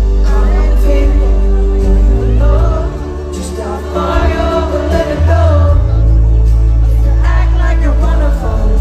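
Live pop-rock band playing loud, with a male lead vocal through the PA over heavy bass and drums, heard from within the audience. The volume dips briefly about three seconds in, then comes back up.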